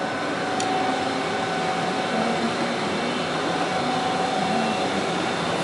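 Forklift running while it is driven and steered: a steady mechanical hum with a faint whine over it.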